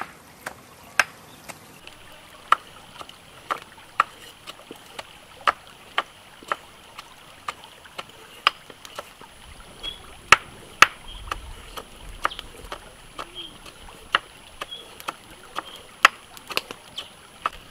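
Broad-bladed knife cutting slits into a whole plucked duck, the blade striking the surface beneath in sharp, irregular clicks about once or twice a second.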